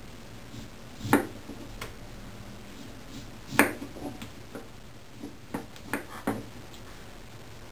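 Kitchen knife cutting through a peeled daikon radish and knocking on a wooden cutting board. There are a few sharp knocks: one about a second in, a louder one about three and a half seconds in, and three quick ones a couple of seconds later.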